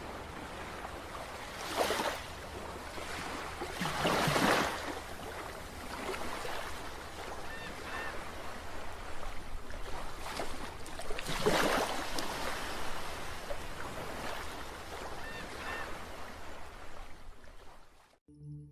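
Ocean surf washing onto a sandy beach, a steady wash with three louder wave breaks, about two, four and twelve seconds in. It cuts off abruptly near the end.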